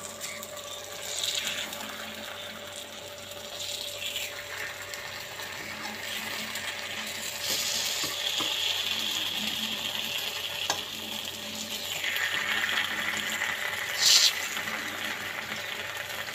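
Unni appam batter frying in oil in the wells of an appam pan: a steady sizzle with a few light taps and scrapes as the appams are turned with a skewer, and a brief louder hiss about 14 seconds in.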